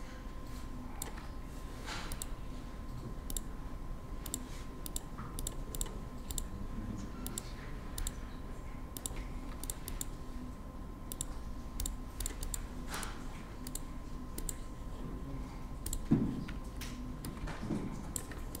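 Irregular clicks of a computer mouse and keyboard at a desk, many small clicks at uneven spacing, with one louder knock about sixteen seconds in. A faint steady tone sits underneath.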